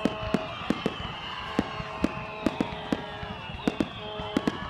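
Irregular sharp pops, sometimes two or three close together, over a steady background of outdoor crowd noise.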